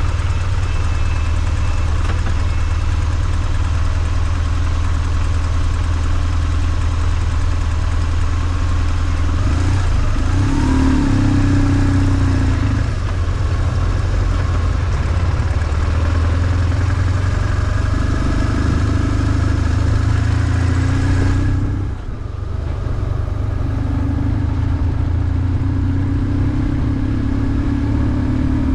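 BMW R1150GS's air-cooled boxer twin running steadily while under way, with a short drop in level about 22 seconds in before it picks up again.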